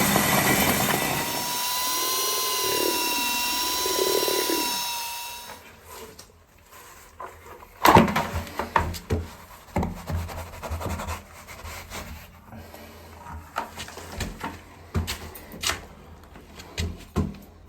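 A power tool runs loudly with a steady whine, then stops about five and a half seconds in. Irregular knocks and clatter follow.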